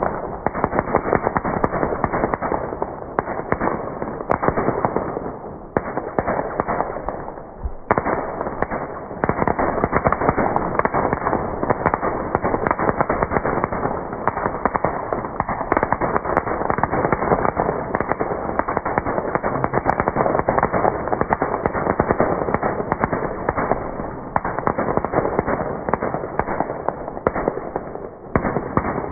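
Ground firework burning on the pavement, giving off a dense, rapid crackle that keeps up without a break, dipping briefly a few times.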